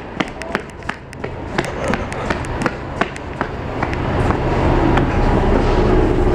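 Footsteps on station platform tiles, about three a second, then a steady low hum that builds from about four seconds in: the running equipment of a waiting Mat '64 electric train, heard from its vestibule.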